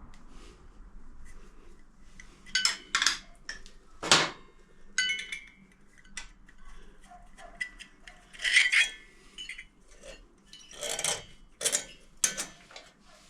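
Hand tools and metal parts clinking, knocking and scraping at irregular intervals while the throttle cable is unfastened from its bracket on the motorcycle's front cylinder head, some clinks briefly ringing. The sharpest knock comes about four seconds in.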